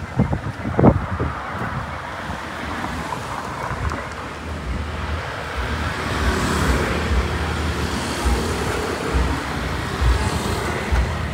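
Road traffic passing, a steady rush of vehicles that swells from about six seconds in as a vehicle goes by. Low thumps of wind on the microphone underneath.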